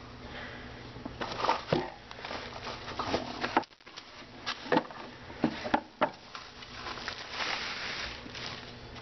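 Plastic bubble wrap rustling and crinkling as a wrapped radiator is pulled out of its cardboard box, with irregular sharp crackles and knocks.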